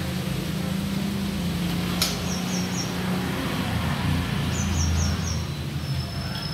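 A spoon clinks once against an aluminium idli plate about two seconds in as batter is spooned into the moulds, over a steady low hum. Short high chirps come in quick runs of three or four.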